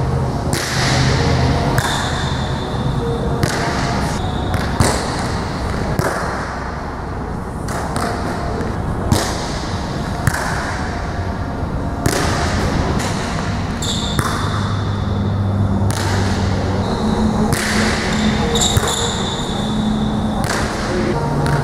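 Volleyballs being served and passed with the forearms, giving sharp slaps every second or two over a steady hum in a large, echoing hall. A few brief high squeaks come in between.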